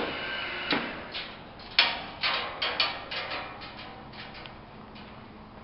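Patterson Kelley stainless steel twin-shell V tumbling blender turning in its cage. A steady hum fades out in the first second, then a run of irregular metallic knocks and clunks follows, growing fainter toward the end.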